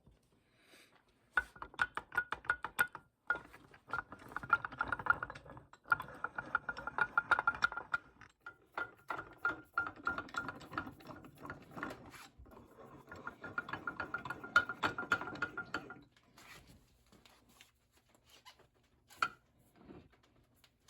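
Restored Simplex Utility #400 bench vise being worked, its screw cranked in stretches of a few seconds: a fast run of metallic clicks with a thin steady ringing tone, stopping about three quarters of the way through, then a few faint ticks.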